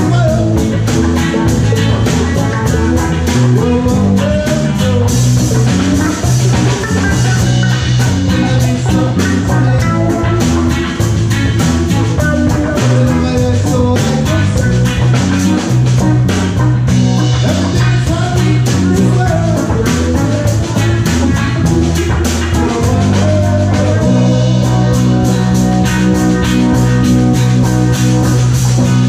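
A live rock band playing: electric guitars and bass guitar over a drum kit keeping a steady beat.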